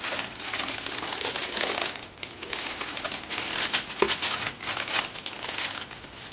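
Packing paper or shoe-box wrapping crinkling and rustling in quick irregular handfuls, with one sharper knock about four seconds in.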